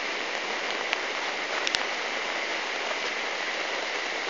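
Steady rush of running water in a tropical-storm flood, with a couple of small clicks in the first two seconds.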